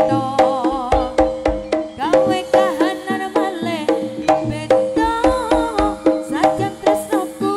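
Live jaranan music from a Javanese ensemble: hand drums keep a fast, steady beat, metallic gong-chime tones ring steadily under it, and a wavering melody line bends above.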